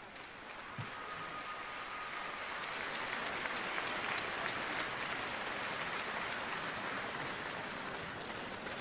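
Arena crowd applauding, swelling over the first few seconds and then holding steady.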